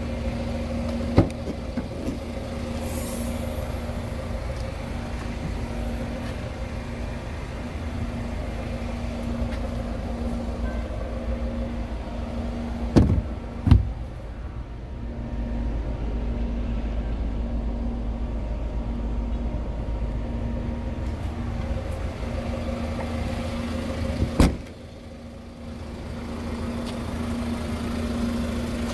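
2014 Hyundai Tucson idling steadily, with a small click about a second in. Two loud clunks a little before halfway come as the tailgate is opened, and a single slam near the end comes as it is shut.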